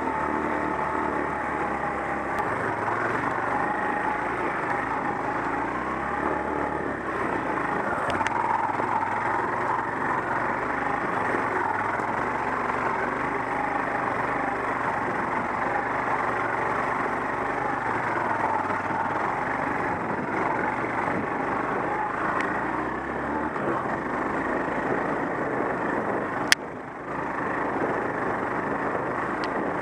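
Off-road motorcycle engine running under way on a dirt trail, its note rising and falling with the throttle. Near the end there is one sharp click, and the engine sound drops briefly before picking up again.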